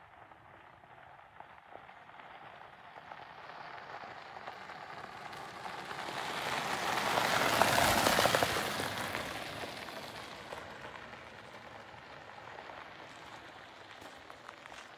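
Monster scooter's tyres rolling over a gravel track, a crackling hiss that grows louder as it approaches, peaks as it passes close about halfway through, then fades as it rolls away.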